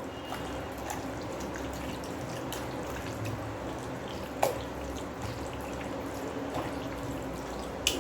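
Thick unsoured curd (plain yogurt) being poured and scraped from a cup onto masala-coated chicken pieces: soft wet plops and small ticks, with two sharp clicks, one midway and one near the end.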